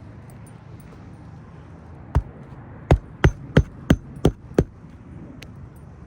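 Hammer driving a roofing nail into an asphalt shingle: one blow, then six quick blows at about three a second.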